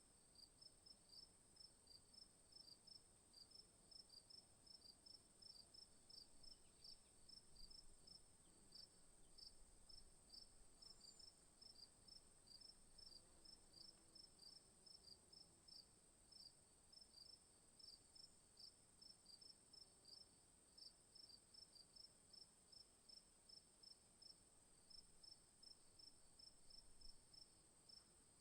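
Crickets chirping faintly in a steady rhythm of about three chirps a second, over a continuous high-pitched insect trill.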